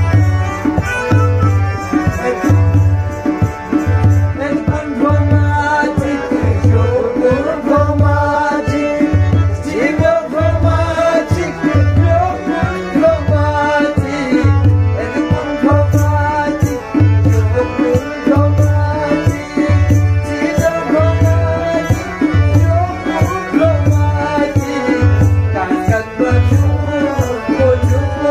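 Harmonium playing a Balti ghazal melody over a steady hand-drum beat, with a low drum stroke about every three-quarters of a second.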